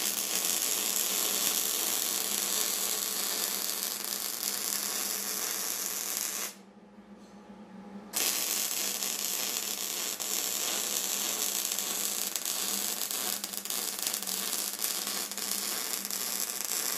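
MIG welding arc crackling steadily as a bead is run on flat steel strip. The arc stops for about a second and a half partway through, then is struck again for a second run.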